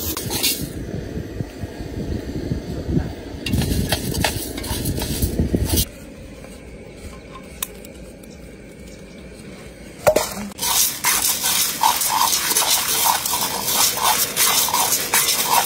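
Dry mung beans being stirred by hand in a metal cooking pot, rattling and scraping against the sides. It is loudest over the last five seconds, in strokes about twice a second, after a quieter stretch in the middle.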